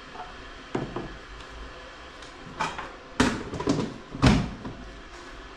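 Kitchen clatter: two light knocks about a second in, then a run of louder knocks and clanks between about three and four and a half seconds, the loudest near the end of that run.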